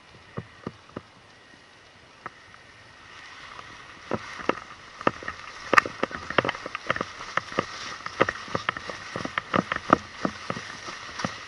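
Footsteps of someone hurrying across a grass field while carrying a handheld camera. A few taps at first, then from about four seconds a quick, uneven run of steps over a rising rush of wind and grass.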